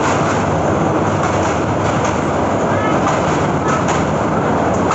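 Steel train wheels running on the rails of a steel truss railway bridge: a loud, steady rumble with faint clacks, heard from an open carriage window.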